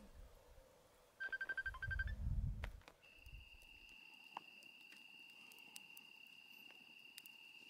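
A quick burst of high, rapidly pulsed chirping lasting about a second and a half, over a low rumble. From about three seconds in, an insect trills steadily on one high note.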